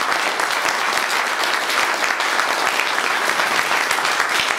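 An audience applauding: many people clapping, dense and steady.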